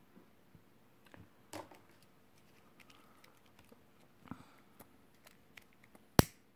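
Faint clicks and rustles of fingers handling a small metal cord end and a lighter. About six seconds in comes one sharp, loud click, the lighter being struck.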